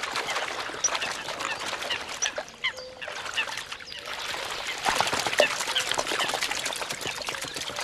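Eurasian coots fighting and chasing each other on the water: continuous splashing and surface pattering, with short sharp calls scattered through it.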